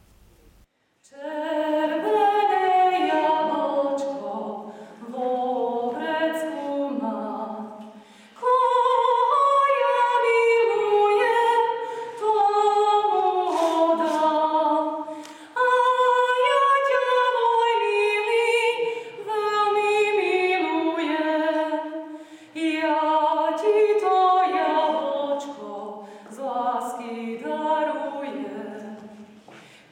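A woman singing solo without accompaniment, a slow melody sung in long phrases with short breath pauses between them.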